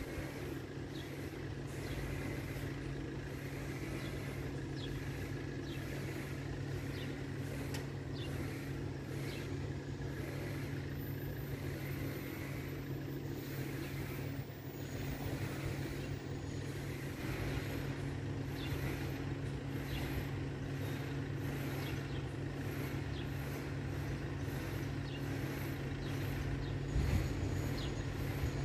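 FS64 level-crossing bell ringing steadily in a continuous repeating pattern, the warning that the crossing is closing for an approaching train.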